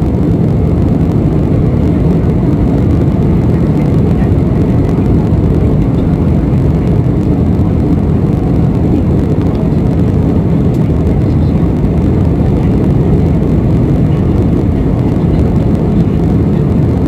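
Airliner cabin noise in flight: a steady low rumble of the engines and the air rushing past the fuselage, heard from inside the cabin.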